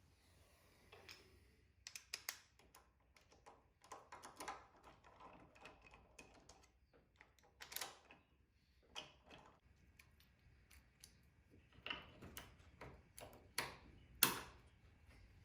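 Faint, irregular clicks, taps and knocks of small hard objects being handled and set down, with the loudest knocks near the end.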